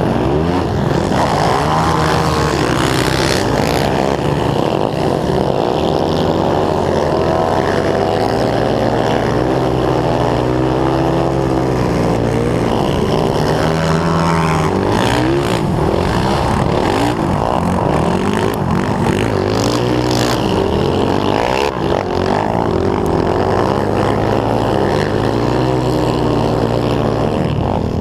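Honda TRX450R quad's single-cylinder four-stroke engine heard from on board at racing revs, its pitch rising and falling again and again as the rider accelerates, shifts and backs off.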